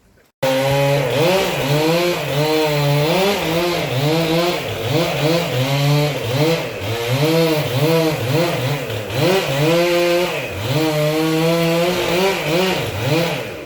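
Two-stroke chainsaw cutting wood. The engine pitch sags repeatedly as the chain bites under load and climbs back as the load eases. It starts abruptly about half a second in.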